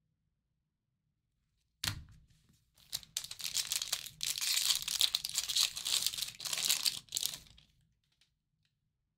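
A trading-card pack wrapper being torn open and crinkled: a sharp snap about two seconds in, then about four seconds of tearing and rustling that stops shortly before the end.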